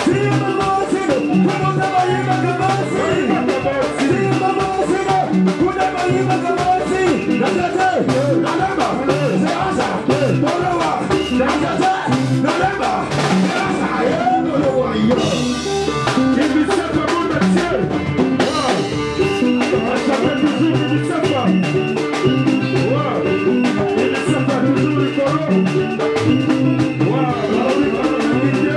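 Live Congolese dance-band music: singing over a steady drum beat.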